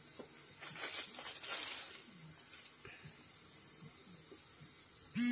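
Plastic instant-noodle packet rustling and being torn open about a second in, over the faint hiss of a gas camping stove and water boiling in the pot. A short, loud steady tone cuts in abruptly right at the end.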